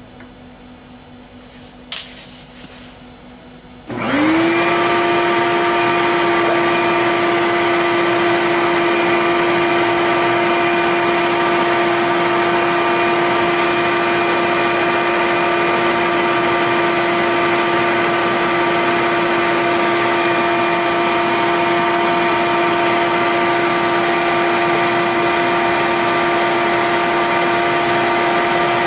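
A shop vacuum switched on about four seconds in: its motor spins up within a moment and then runs at a steady high whine. A single sharp click comes about two seconds in, before it starts.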